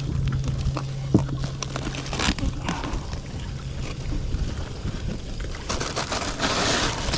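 Wind buffeting the microphone on a small boat, with a steady low hum that stops about two seconds in, a few knocks, and a hissing wash near the end.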